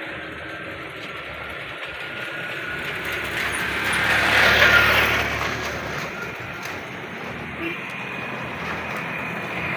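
A vehicle passing by, its noise swelling to a peak about halfway through and then fading, over steady outdoor background noise.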